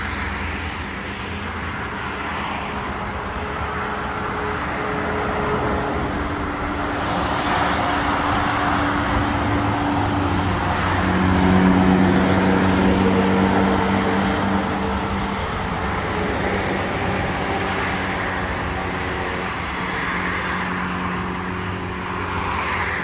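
Steady engine hum over a broad rushing noise, swelling and shifting in pitch about eleven seconds in, then easing off.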